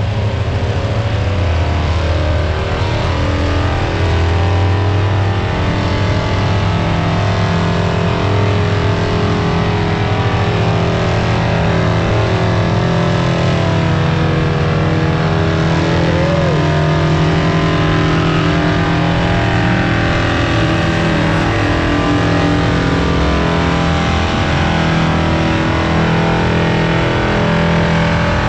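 Burnout car's engine held at high revs for a long stretch, a loud, steady, unbroken note that wavers slightly with the throttle as the rear tyres spin and smoke.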